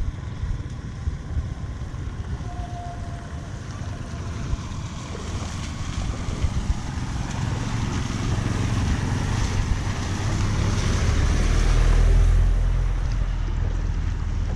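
Floodwater rushing steadily into a culvert drain, growing louder for a while before easing near the end, with wind buffeting the microphone as a low rumble.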